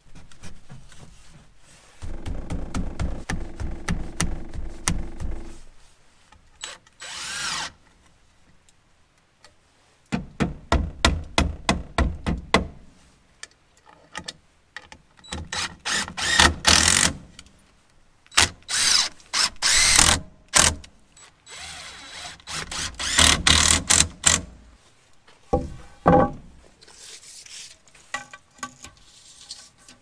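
Cordless drill driving screws into rough-sawn 2x4 boards, in repeated runs of one to three seconds each, with short pauses between.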